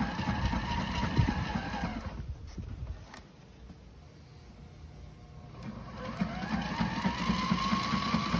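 Sewing machine stitching a leather reinforcement patch onto the sail-cover fabric: the motor whines over a fast needle clatter. It pauses for about three seconds in the middle, then starts again, its whine rising in pitch as it speeds up near the end.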